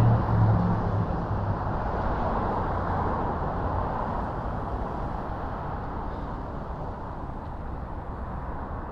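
Road traffic passing: a vehicle's engine hum in the first second or so, then tyre and traffic noise that slowly fades.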